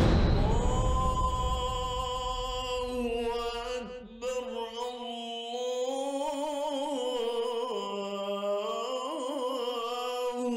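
Background score: a sudden loud hit at the start, then a solo voice singing long, wavering held notes in a chant-like style.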